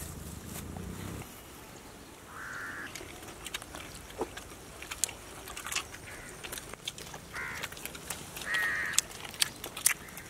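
Scattered sharp clicks and crunches of people biting into and chewing fried chicken legs, with a crow cawing three times in the background.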